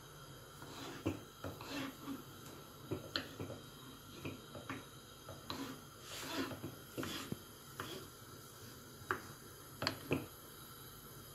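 A knife cutting sausage slices into cubes on a wooden cutting board: faint, irregular taps of the blade against the board, about one or two a second.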